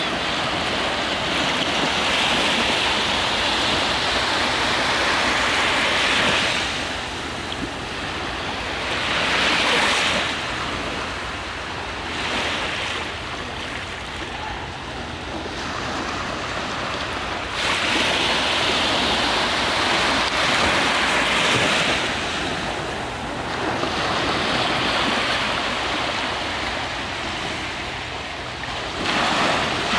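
Small waves washing onto a sandy beach, the hiss of the surf swelling and easing every few seconds.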